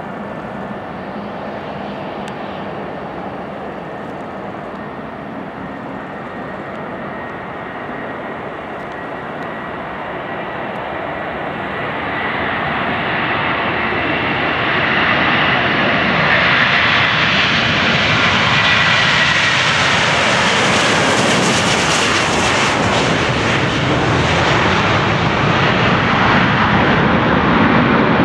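Airbus A330-300's twin Rolls-Royce Trent 700 turbofans at takeoff thrust during the takeoff roll and lift-off, a steady jet roar with a faint whine. It grows louder and brighter as the airliner rolls past, then stays loud as it climbs away.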